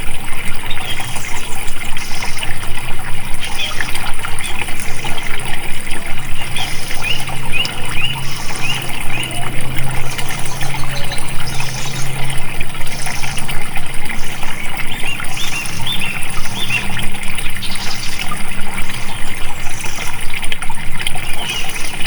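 Flowing water running steadily, with a busy, rapidly fluctuating splash.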